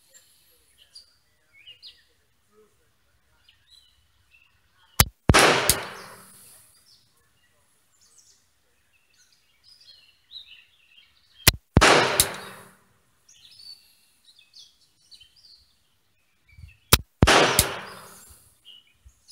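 Three shots from a French Modèle 1892 8mm revolver, about six seconds apart. Each is a short sharp crack followed a moment later by a louder echo rolling back off the berm and woods, which dies away over a second or so; the phone's microphone suppresses the report itself. Birds chirp between the shots.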